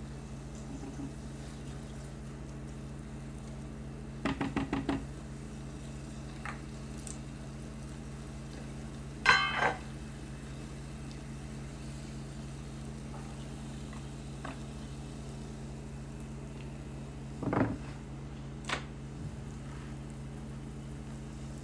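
A cooking utensil knocking and scraping against a pan while vegetables are stirred. There is a quick run of about six taps a few seconds in, a louder clatter near the middle, and a couple of single knocks later on, all over a steady low hum.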